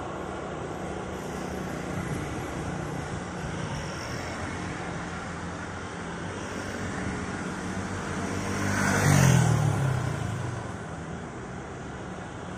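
Road traffic: motorcycle and truck engines running steadily. About nine seconds in, one vehicle passes close by, growing louder, with its engine pitch dropping as it goes past.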